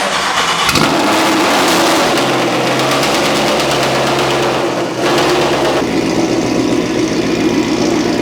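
A car engine starting and then running steadily, with a loud rushing noise and a steady hum that shifts about a second in and again partway through.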